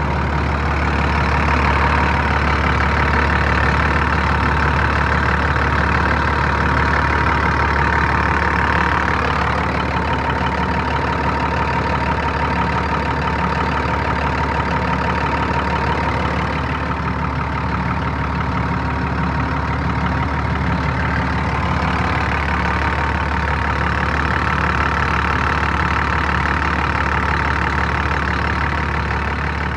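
John Deere 7810's six-cylinder diesel engine idling steadily, its sound growing brighter for a while near the start and again near the end.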